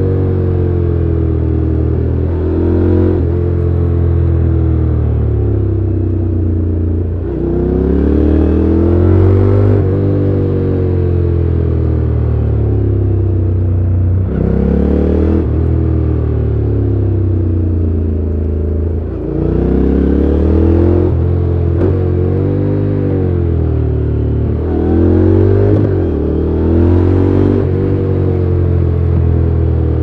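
Honda NC750X's parallel-twin engine through its stock exhaust, heard from on board while riding: it revs up and eases off again and again, its pitch rising and falling, with several quick gear changes.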